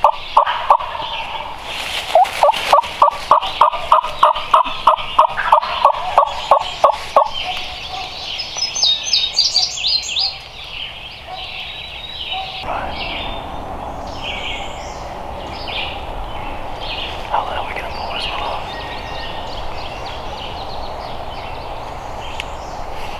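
Turkey yelps: a long, even run of loud notes, about three a second, ending around seven seconds in. Songbird calls and chirps follow over steady outdoor background noise.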